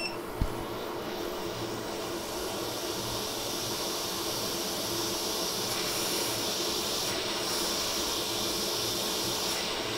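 Steady hiss of air from a hot air rework station blowing over a phone logic board, coming on at the start and holding even. There is a faint steady hum under it and a light knock about half a second in.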